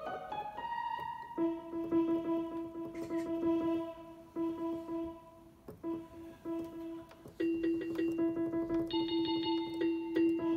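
Roland SK-88 Pro keyboard playing a piano-like voice: the end of a quick rising run of notes, then a single note held and struck again several times. About three-quarters of the way through the tone changes and a few other notes join it.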